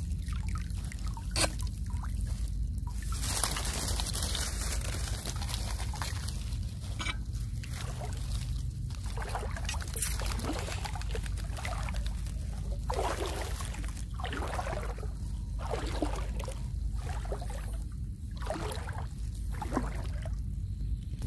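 Shallow water splashing and trickling as someone wades through it, with short splashes about once a second in the second half.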